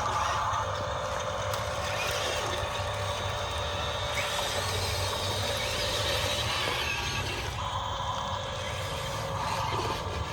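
1:16-scale RC construction machines running, a steady mechanical hum from their motors and gearing. A higher whine swells in and out several times as the machines work.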